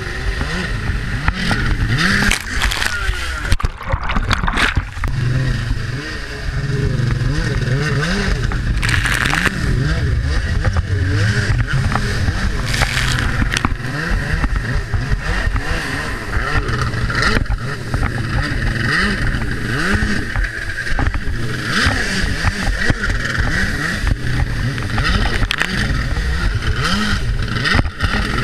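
Stand-up jet ski engine revving up and down again and again, its pitch rising and falling every second or so, over steady rushing noise from spray and wind.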